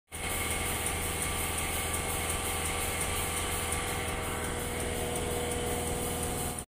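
Mercedes-Benz Actros truck's diesel engine idling steadily, heard from inside the cab.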